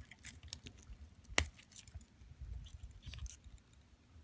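A keyring with small metal tools and trinkets clinking and rattling as it is handled and turned over, with one sharper click about a second and a half in.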